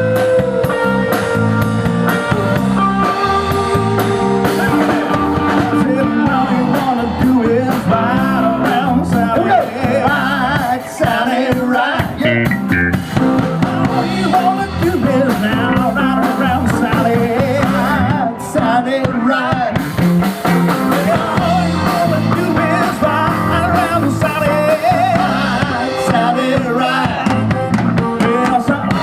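Live rock band playing a bluesy rock-and-roll number: electric guitar over a drum kit, continuous and loud.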